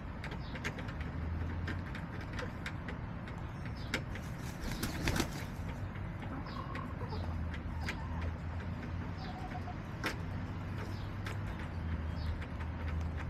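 Backyard hens making low, cooing murmurs and a few soft clucks, with scattered sharp taps and clicks. A louder rustle about five seconds in.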